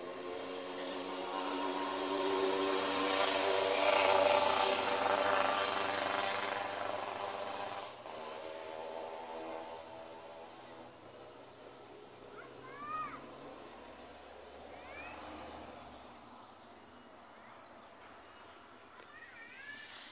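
Insects buzzing: a loud, pulsing drone swells over the first few seconds and fades away by about eight seconds, leaving a steady high insect hiss. A bird gives a few short rising chirps about halfway through.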